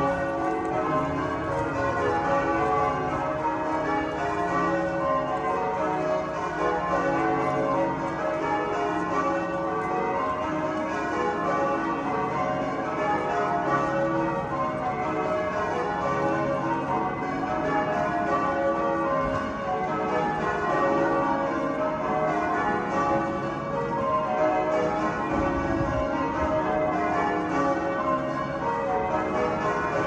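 Canterbury Cathedral's church bells being rung in changes: a continuous peal of many bells sounding one after another in overlapping rounds.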